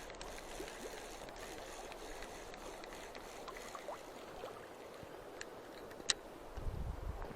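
Mountain river's water rushing steadily, with scattered small clicks, one sharp click about six seconds in, and a low rumbling thump near the end.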